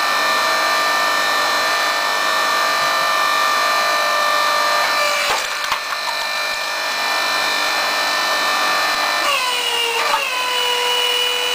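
Log splitter working a log: a steady high whine of several tones, a few sharp cracks about halfway through, and the tones dropping in pitch about nine seconds in, then holding there.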